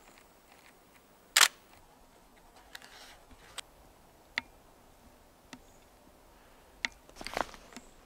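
A single loud, short shutter release of a Nikon D5 DSLR about one and a half seconds in. A few faint clicks follow, then a soft scuffle near the end.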